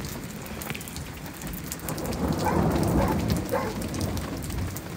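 Rain falling steadily, with a low roll of thunder that builds about two seconds in and fades away again by about four seconds.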